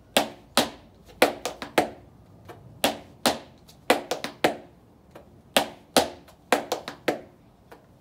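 Heeled dance shoes striking and scraping a concrete floor in folklórico footwork, the tornillo step of scrape, heel, stomp, stomp. Sharp taps come in repeating clusters of two to four.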